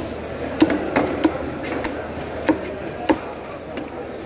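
Knife blade cutting through a raw tuna loin and knocking on a wooden chopping block: about six sharp, irregular knocks in the first three seconds.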